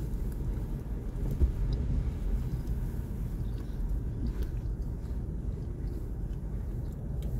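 Steady low rumble of a car idling, heard inside the cabin, with faint chewing of a mouthful of Crunchwrap Supreme and a few small crunches.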